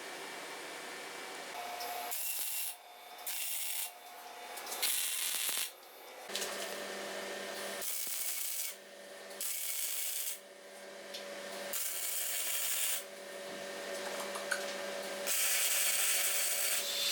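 Rasping, rubbing workshop noise of a tool working material, in short stretches that cut off and start again abruptly every second or two.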